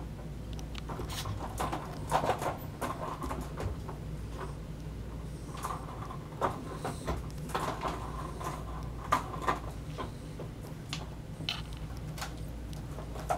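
Scattered soft clicks and rustling of small kittens moving, pawing and grooming on a carpeted cat tree, over a steady low hum.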